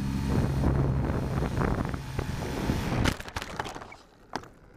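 Electric motor and propeller of an ST Models Discovery Trainer RC plane in low flight, a steady buzzing hum with wind rushing over the microphone. About three seconds in it cuts off abruptly in a burst of knocks and scrapes as the plane crashes into the grass, with one last knock about a second later.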